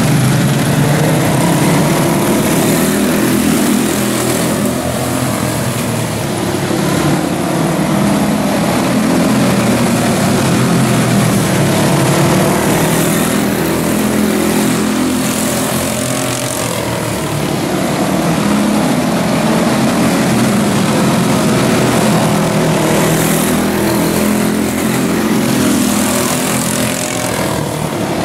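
Several quarter midget race cars with single-cylinder Briggs & Stratton Animal four-stroke engines racing around a dirt oval. The combined engine note rises and falls in repeating waves as the pack goes through the turns and down the straights.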